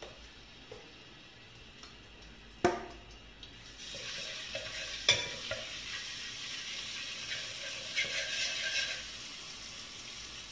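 Ginger-garlic paste frying in hot sunflower oil, starting to sizzle about four seconds in, while a steel ladle stirs it. Two sharp knocks, one a little before three seconds and a louder one about five seconds in, from the ladle striking the pot.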